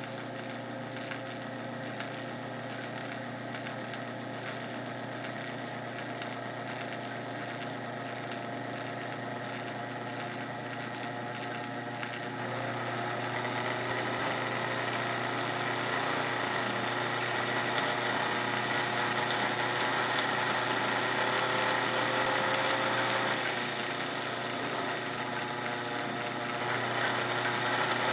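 Singer 128K vibrating-shuttle sewing machine running steadily. It speeds up about halfway through, eases off briefly near the end, then picks up again.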